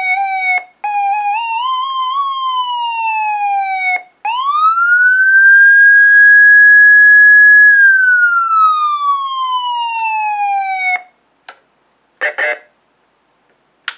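SVP SA450 electronic siren in manual mode: the tone climbs while the siren button is held and slides back down when it is released. A few short blips and a stepped rise and fall come first, then a long rise that holds high for a couple of seconds and slowly falls before cutting off about eleven seconds in. A few clicks and a brief rattle of handling the controls follow.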